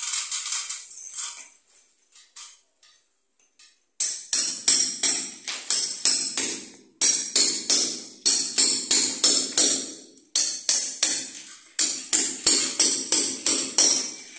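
Hammer striking a steel chisel into a concrete wall, chiselling out an opening for electrical wiring: rapid ringing metallic strikes, about two to three a second, with a pause of about two seconds before they resume about four seconds in.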